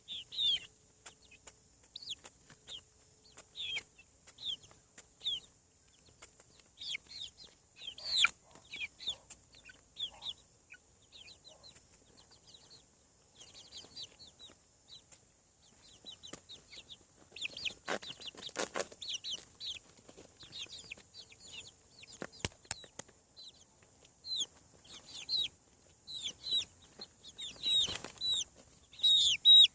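Young chickens peeping: many short, high, falling peeps, scattered and thickest near the end, with a few sharp knocks and a brief rustle about two-thirds of the way in.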